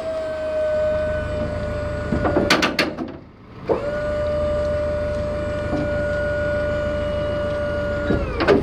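Hydraulic liftgate pump on a box truck running with a steady whine while the steel platform folds and tucks under the bed. The whine stops about two seconds in amid a few metal clanks, starts again a second or so later, and runs until a clank near the end as the platform stows.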